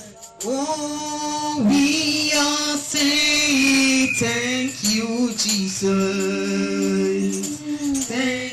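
Church choir singing a slow worship song, with long held notes and women's voices prominent.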